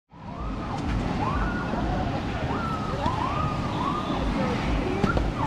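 Water park ambience: a steady rush of water with a crowd of voices over it, many overlapping rising-and-falling calls and shouts.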